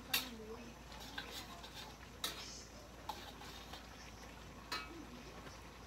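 Metal spatula clinking and scraping against a wok during stir-frying: three sharper strikes about two seconds apart, with lighter taps between them.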